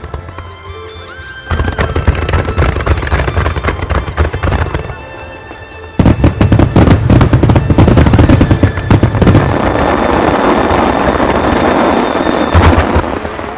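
Rapid-fire barrage of aerial firework shells bursting in quick succession over loud music. One volley starts about a second and a half in; a heavier one breaks out about six seconds in and turns into dense crackling toward the end.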